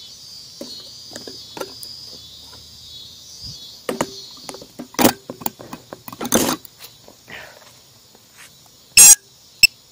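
Crickets trilling steadily for the first few seconds, then scattered footsteps and knocks. A loud short noise comes about nine seconds in, followed by a few sharp clicks at the end.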